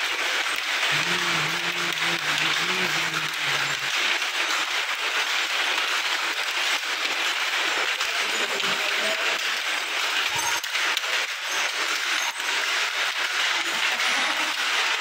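Several cotton handlooms working at once: a dense, steady clatter of many small knocks.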